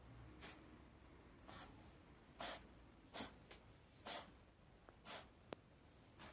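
Cat reverse sneezing: a run of about six short, forceful noisy intakes of breath through the nose, roughly one a second, with a few faint clicks between them. Reverse sneezing is a harmless physiological reflex.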